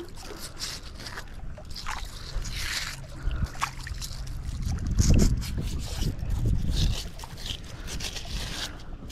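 Fingers scraping and picking wet muck and debris off a neodymium fishing magnet, in short scratchy scrapes and clicks. A low rumble runs through the middle, loudest about five seconds in.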